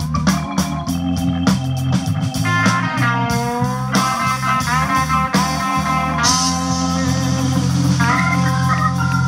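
Live instrumental band music: a Hammond SK2 organ, an electric guitar and a drum kit playing together, with bending melody notes over a steady low foundation.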